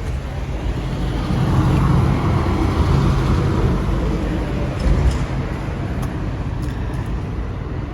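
Street traffic: a motor vehicle passes close by, swelling about a second in and fading after a few seconds, over a steady hum of traffic.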